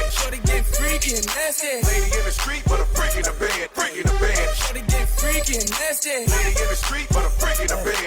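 Hip hop music: a beat with deep sub-bass notes that hit about once a second, under a busy mix.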